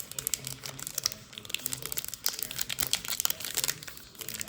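Baseball trading cards being handled and flipped through by hand: an irregular run of crisp rustles and light clicks.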